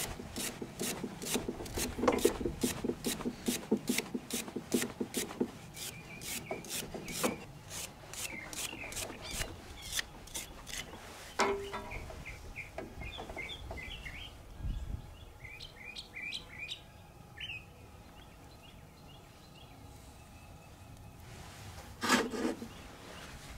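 Ratchet wrench clicking quickly and evenly, about three clicks a second, as battery cable terminal nuts are tightened. The clicking stops about halfway through. Small birds chirp in the background, and a louder rustling knock comes near the end.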